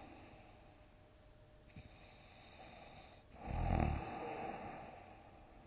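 A sleeping person snoring: quiet breathing, then one short snore about three and a half seconds in.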